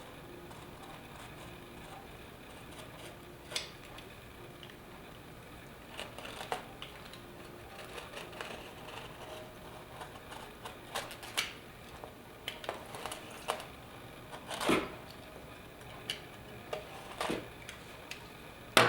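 A knife cutting through a cork board in repeated passes: scattered short scraping strokes and clicks, with one longer, louder stroke about three-quarters of the way through.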